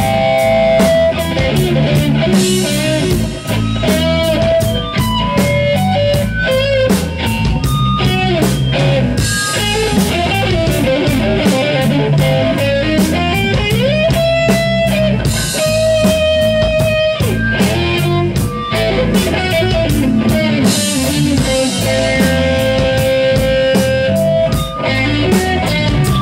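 A live rock band plays. An electric guitar plays a lead line of sustained, bending notes, with one rising bend into a long held note about halfway through, over bass guitar and drums with a steady cymbal beat.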